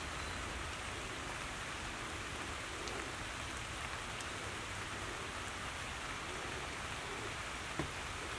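Steady, even outdoor hiss with a few faint ticks.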